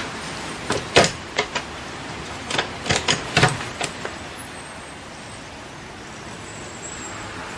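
Footsteps and knocking at a wooden-framed glass door: a string of irregular sharp taps and knocks over the first four seconds, some in quick pairs, then only a faint steady hiss.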